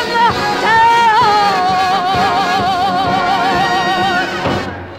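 A woman singer holds a long, falling note with wide vibrato over a dance-band orchestra, ballad style. The music ends about four and a half seconds in.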